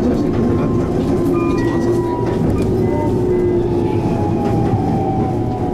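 Keihan electric commuter train running on the rails: a steady low rumble with faint wheel clicks, and the traction motors' whine slowly falling in pitch.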